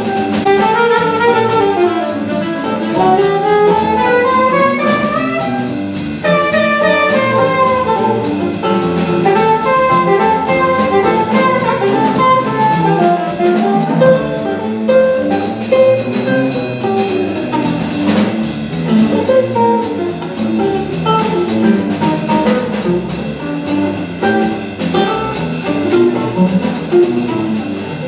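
Live small-group jazz: an alto saxophone plays a flowing solo line over upright bass, 8-string guitar and drum kit.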